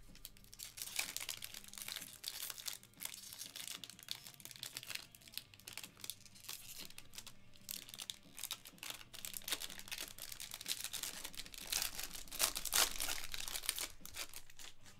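Foil wrapper of a Topps baseball card jumbo pack crinkling and tearing as it is ripped open by hand, in a run of crackles that is loudest near the end.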